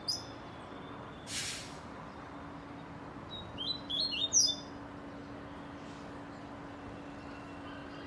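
Coleiro (double-collared seedeater) chirping: one short note at the start, then a quick run of high, falling chirps about three and a half to four and a half seconds in. A brief noisy rush about a second and a half in, and a faint steady low hum underneath.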